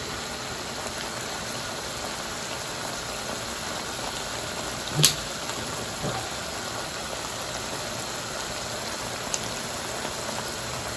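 Shrimp simmering in butter-garlic sauce in a wide pan over a gas burner: a steady bubbling sizzle, with one sharp click about five seconds in.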